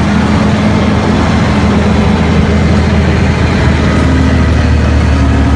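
Caterpillar mining haul truck's large diesel engine running as the truck drives past: a loud, steady, low drone.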